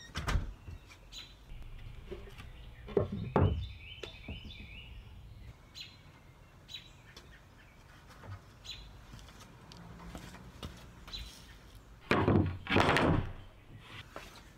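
Wooden boards knocking against each other and the wall as lumber leaning against it is handled: a knock at the start, a pair about three seconds in, and the loudest knocks near the end. Birds chirp in between.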